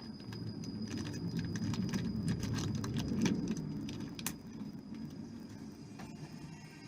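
Small metal parts clinking: loose bolts and hardware handled and rummaged through, a rapid run of irregular clicks over a low rumble that thins out after about four seconds.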